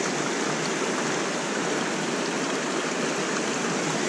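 Shallow river water rushing steadily over and around rocks, a constant even hiss.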